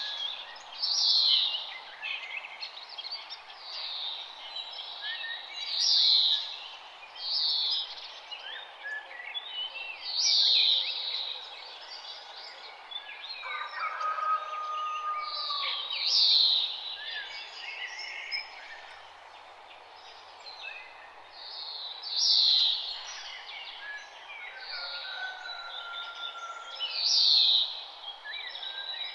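A chorus of wild songbirds singing and chirping. One loud, high song phrase comes back about every five seconds over many quieter chirps and calls, with a steady background hiss underneath.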